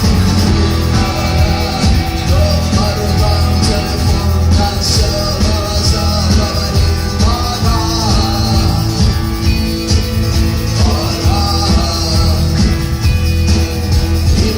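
A rock band playing live, with a steady bass line, drums with cymbals, and guitar.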